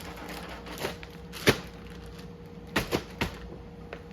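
Several sharp knocks and clicks from objects being handled, the loudest about a second and a half in and a quick cluster near the end, over a faint steady hum.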